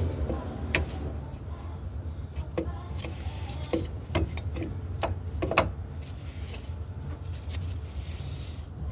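Scattered sharp metallic clicks and clinks of rear drum brake parts, shoes and return springs, being handled and fitted, over a steady low hum.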